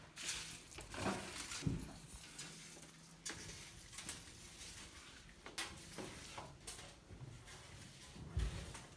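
Faint, scattered clicks and knocks, spaced a second or more apart.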